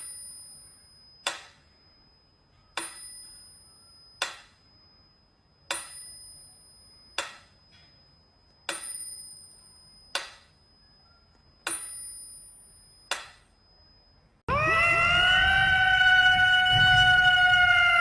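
Sharp clicks in pairs, about every three seconds, each with a faint high ring. About fourteen seconds in, a cat starts a loud, long yowl that slowly falls in pitch.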